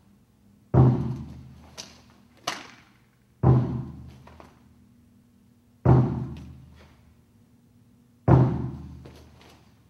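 A large drum beating the count for a martial-arts form: four deep single beats, roughly every two and a half seconds, each ringing out and fading before the next. Two lighter, sharp clicks fall between the first two beats.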